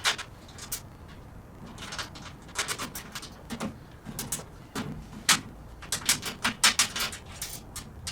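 Irregular short clicks and clinks of a wrench and nuts, bolts and washers as casters are fastened to a tool cart, some coming in quick runs of three or four.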